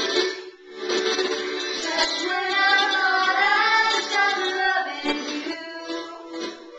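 Girls singing a song together, with a long, wavering held note from about two to four and a half seconds in.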